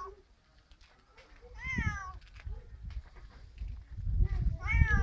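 Siamese cat meowing twice, each call rising then falling in pitch, the first a couple of seconds in and the second near the end. A low rumbling noise runs underneath in the second half.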